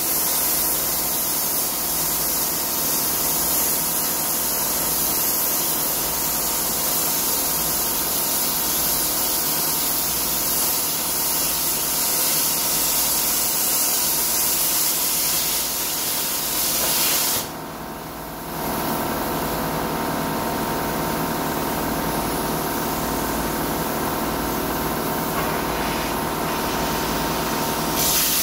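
Eastwood Versa Cut 60 amp plasma cutter cutting through a rusty steel truck frame: a loud, steady hiss of the arc and air jet. It stops for about a second roughly two-thirds of the way in, then starts again.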